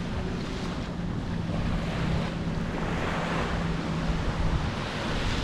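Surf washing on a sandy beach, swelling and easing, with wind buffeting the microphone and a steady low hum underneath.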